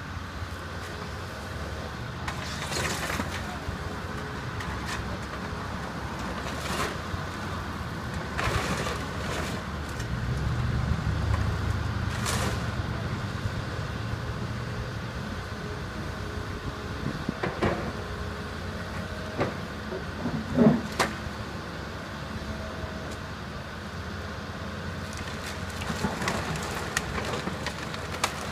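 John Deere excavator's diesel engine running steadily, working harder for a few seconds around the middle, as its bucket and thumb grab at a demolition pile. Splintered lumber and sheet metal crack and clatter at irregular moments, with the sharpest crack about two-thirds of the way through.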